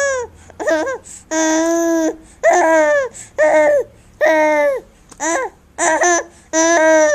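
A baby laughing and squealing with delight in a string of high-pitched bursts, each under a second long, one after another.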